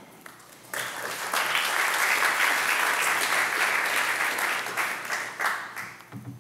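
Audience applauding at the end of a talk: a burst of clapping that starts about a second in, holds steady, and fades out near the end.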